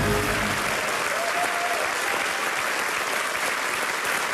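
Studio audience applauding, a dense steady clapping. A music sting ends as the applause comes in.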